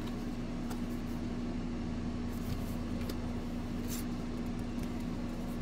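Steady electrical or fan-like room hum with a constant low tone, and a few faint soft clicks of trading cards being slid from one hand to the other.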